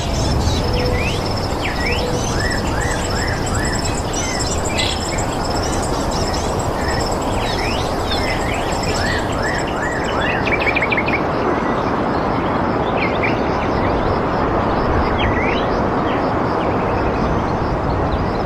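Birds chirping in quick repeated sweeping notes over a steady rushing background noise, with a high, fast pulsing trill through the first half.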